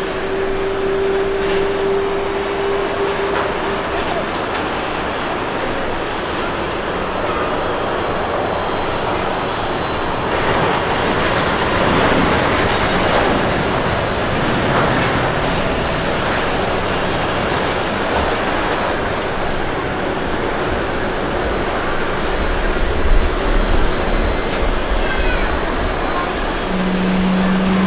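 Airbus A350-900 jet airliner landing: a steady engine whine over a dense rush of jet noise as it touches down, the whine fading out after a few seconds. From about ten seconds in the rush swells and then eases off as the aircraft rolls out and slows on the runway.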